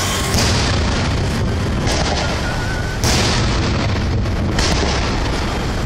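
Aerial fireworks shells bursting overhead in a series of booms. The loudest come about a third of a second in and about three seconds in, with a weaker one near the end, over a dense, continuous rumble.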